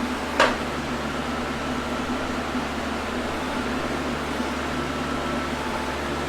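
An engine running steadily, with a brief sharp squeak or clank about half a second in.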